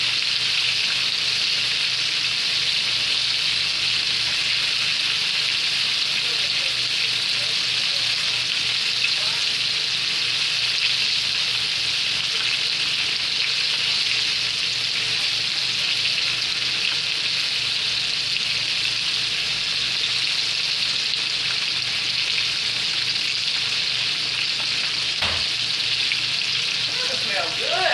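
Breaded chicken strips frying in a skillet of hot oil: a steady sizzle.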